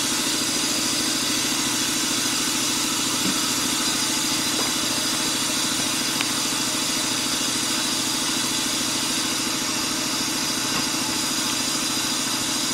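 Compressed air hissing steadily as it flows through the Willys F-head engine block's cooling passages and escapes at its joints during a pressure test, over a steady low hum.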